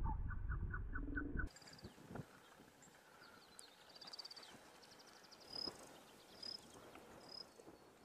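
A low rumble with a fast run of pulsing notes cuts off suddenly about a second and a half in. It leaves faint wild bird calls: high trills and short chirps repeated about once a second.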